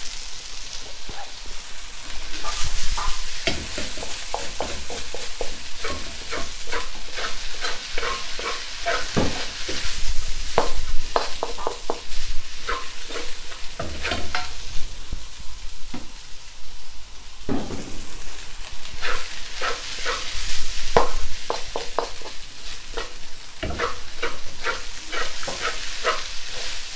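Fried rice sizzling in a hot wok while a wooden spatula stirs and turns it, with frequent quick, irregular scrapes and knocks of the spatula against the wok over a steady sizzle.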